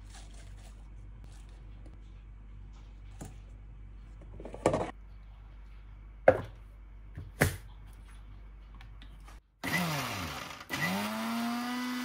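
A few sharp knocks, then a Philips mixer grinder's motor grinding coriander, mint and green chillies into a paste in its steel jar. It runs in two short bursts, and the second rises in pitch to a steady whine.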